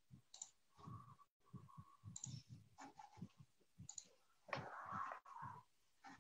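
Near silence with faint, irregular clicks and ticks.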